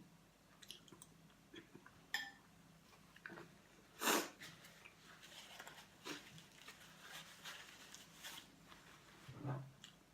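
A person chewing food close to the microphone, with small wet mouth clicks throughout and a louder, noisier eating sound about four seconds in.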